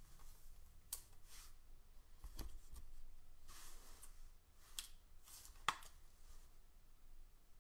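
Trading card in a soft plastic penny sleeve being slid into a rigid plastic top loader: faint plastic rustling and scraping with scattered clicks, the sharpest click about three-quarters of the way through.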